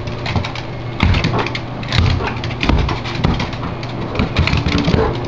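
A small dog playing with a balloon on a wooden floor: dog sounds over a rapid, irregular run of knocks and scuffles, with heavier thumps about one and two seconds in.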